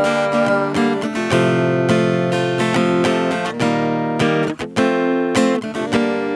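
Acoustic guitar, a GWC 235 NA, strummed in chords that ring between strokes, as an instrumental break with no singing. The sound drops out briefly about four and a half seconds in, at a chord change.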